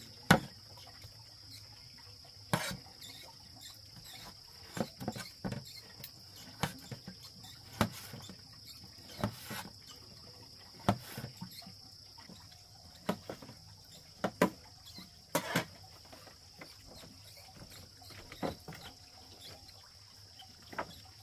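Steady high-pitched drone of insects, cricket-like, with sharp knocks at irregular intervals, about one every one to two seconds, some coming in quick pairs.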